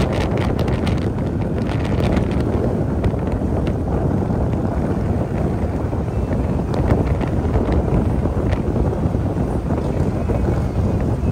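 Wind rushing and buffeting over the microphone of a motorcycle cruising at steady speed, over the low rumble of a Harley-Davidson Road King's V-twin engine.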